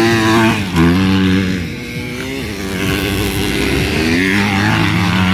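Motocross bike engines revving hard, their pitch climbing and dropping again and again as several bikes run at once.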